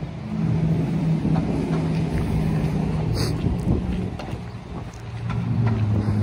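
Street traffic: a motor vehicle's engine running with a steady low hum, fading a little and building again near the end, with a brief high-pitched sound about halfway through.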